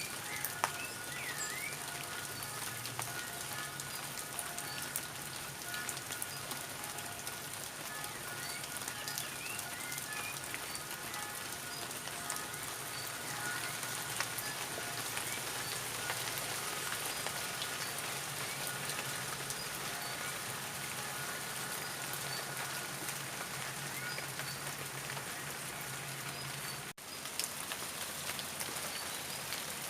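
Steady rain falling, with a dense patter of drops ticking on surfaces. It breaks off for an instant about 27 seconds in, then carries on.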